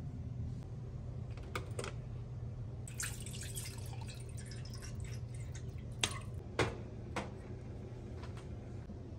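Water poured from a plastic bottle into a stainless steel saucepan, a short splashing pour about three seconds in. A few light knocks follow a couple of seconds later, over a steady low hum.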